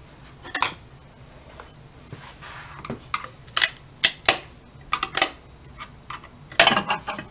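A screwdriver prying at a golf cart's spoked spinner wheel cover to pop it off the wheel, making a series of sharp metallic clicks and clinks, with a louder cluster near the end.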